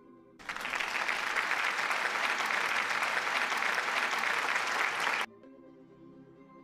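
Applause sound effect, a dense crowd clapping that starts abruptly about half a second in and cuts off just as suddenly some five seconds later, over faint background music.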